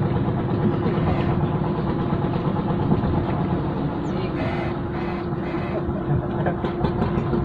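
Boat engine running steadily: a low rumble with a constant hum, no change in speed.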